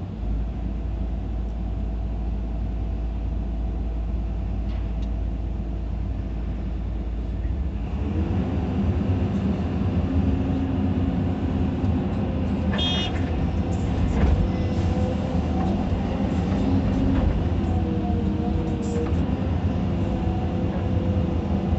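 Caterpillar 320D2 hydraulic excavator's diesel engine and hydraulics working under load, heard from inside the cab. The pitch of the hum shifts as the boom swings and the bucket dumps soil and digs. A few brief knocks and a short high squeal come around the middle.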